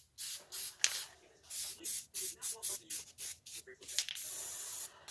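Aerosol spray-paint can hissing in quick short bursts, about three a second, then one longer spray of nearly a second near the end.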